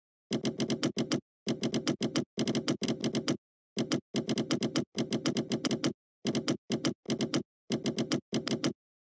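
Typing on a computer keyboard: quick runs of keystrokes, each run lasting up to about a second, broken by short pauses.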